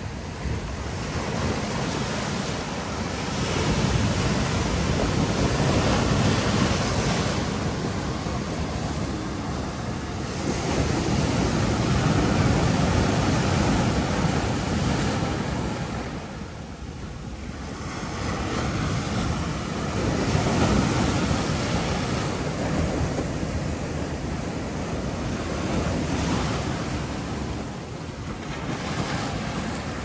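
Sea surf breaking on a rocky shore and washing among the boulders, a continuous rush that swells and eases in surges several seconds apart.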